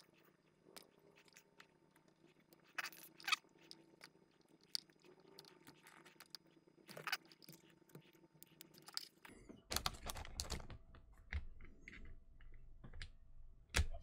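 Faint, irregular crackling and clicking of hands working a flexible electrical cable, stripping back and twisting the plastic-insulated wire ends. It gets busier about ten seconds in, and a single sharp click comes near the end.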